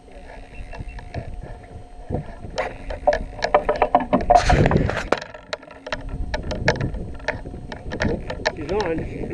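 Indistinct voices with scattered sharp clicks and knocks of gear being handled in an aluminium boat, over a low steady motor hum.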